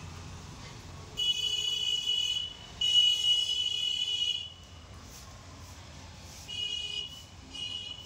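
A loud, high-pitched buzzing tone, sounding twice for about a second and a half each, then twice more briefly near the end.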